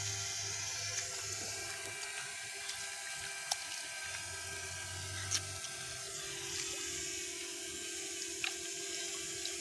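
Hands sloshing and stirring shallow muddy water while feeling for fish, over a steady hum, with a few small clicks.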